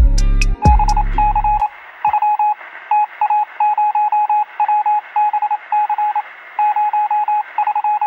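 The tail of a bass-heavy music track stops about a second and a half in. Over a hiss of radio static, a single-pitched beep keyed in short and long pulses, like Morse code, starts about half a second in and runs on in irregular groups: a radio-telegraph sound effect for a production logo.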